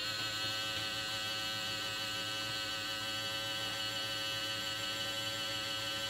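Small DC motor of a 3D-printed toy washing machine running steadily after the motor swap: an even hum with a high, unchanging whine.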